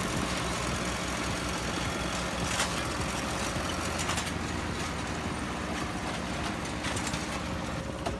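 Engine of a farm machine running steadily.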